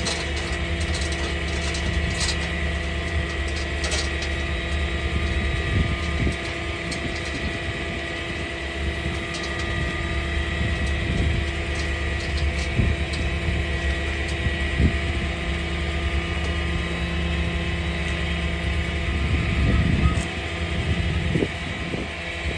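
Tow truck's engine running steadily, with scattered metallic clinks and rattles of tow chains being hooked and handled.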